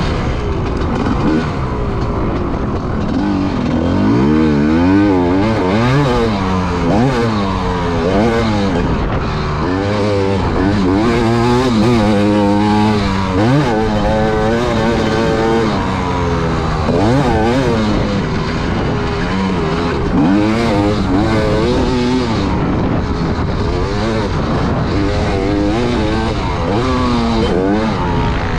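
Dirt bike engine revving up and down over and over, its pitch climbing and dropping every second or two as the throttle is opened and shut around a motocross track.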